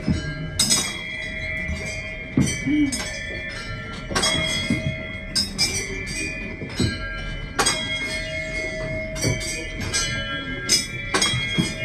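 Bells on large hand-turned prayer wheels ringing over and over as the wheels revolve, struck irregularly about once or twice a second, each chime ringing on under the next.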